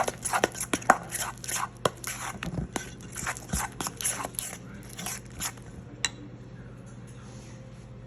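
A utensil stirring a thick chili-paste and honey sauce in a bowl, with quick clicks and scrapes against the bowl that stop about five and a half seconds in.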